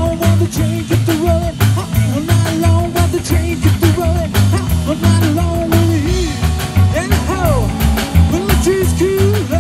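Live rockabilly band playing an instrumental stretch: electric guitar lead with bent notes and a falling slide about seven seconds in, over a driving upright bass and drum kit.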